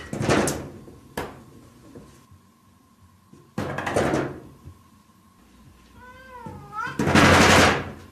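A cat pawing at a wooden-framed sliding paper door, making it rattle and knock in its frame in three loud bursts, with a short meow about six seconds in.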